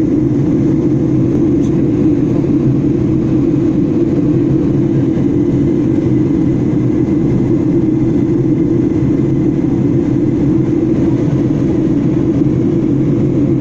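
Jet airliner cabin noise in flight: a steady, loud, low drone from the engines and the air rushing past the fuselage, heard from a window seat.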